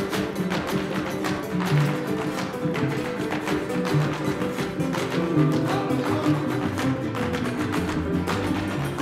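Live son jarocho music: jaranas strummed in a quick, driving rhythm over a plucked bass line, with the couple's zapateado footwork tapping on the wooden stage. No singing in this stretch.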